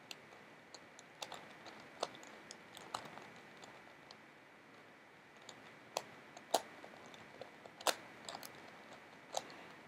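Megaminx puzzle being turned by hand: irregular sharp plastic clicks as its faces are twisted, with a few louder clicks in the second half.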